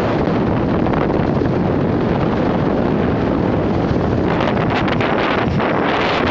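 Wind buffeting the microphone: a loud, steady rushing noise with no other distinct sound.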